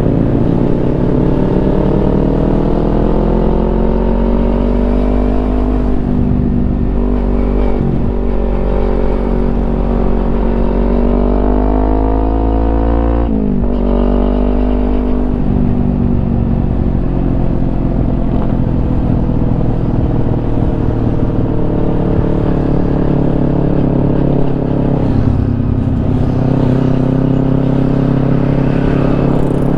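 Kawasaki Ninja 250's parallel-twin engine running through a Yoshimura exhaust while being ridden: the revs climb steadily, fall sharply at a gear change about halfway through, then pick up again and settle into a steady cruise.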